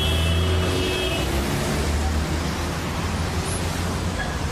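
Steady rumble of a car's engine and road noise, as heard from inside a moving car, with a brief high-pitched tone in the first second.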